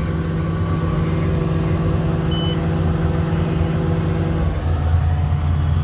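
Komatsu PC400LC-8R excavator's diesel engine running steadily at high idle, now reaching about 1900 rpm with the fuel control dial signal restored. About four and a half seconds in, the engine note drops to a lower one, and a short beep sounds about halfway through.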